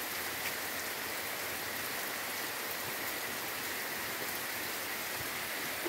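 Heavy rain falling steadily on trees and tall grass, an even hiss with no breaks.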